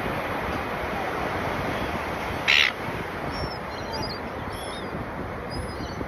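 One short, harsh gull squawk about two and a half seconds in, over steady wind on the microphone and surf, followed by a few faint, distant high bird calls.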